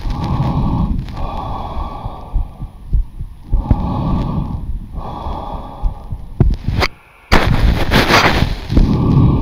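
Lung sounds through a SKOP electronic stethoscope sent over a Zoom call: a patient's deep breaths in and out, about three full breaths, heard as muffled rushing swells with nothing above the low range. A few sharp clicks from the chest piece, and a brief dropout about seven seconds in.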